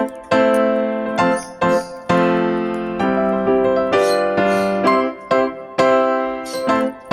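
Background music: a piano or electric piano playing chords, each struck and left to fade before the next, about one every half second to a second.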